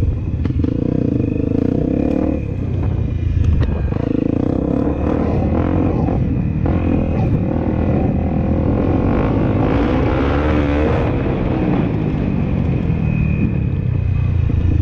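A Honda CRF250L's single-cylinder four-stroke engine runs steadily under way on a dirt track, with a few short knocks.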